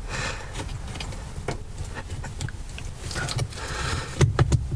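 Metal parts knocking and scraping as the gear lever's bush housing plate is worked by hand against its mounting studs, with a quick cluster of sharp clicks about four seconds in. A steady low rumble lies under it.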